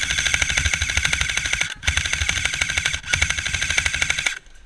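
Elite Force M4 CQB airsoft electric gun firing on full auto: two long bursts of rapid clicking shots over a whirring gearbox, with a brief break between them a little under two seconds in.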